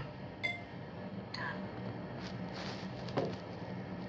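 A few faint clicks and knocks from a handheld plastic remote being handled, including a short tone about half a second in, over a low steady hum.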